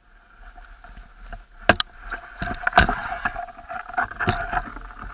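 Carp angler's electronic bite alarm sounding a continuous, warbling tone as line runs off during a take, with several sharp knocks.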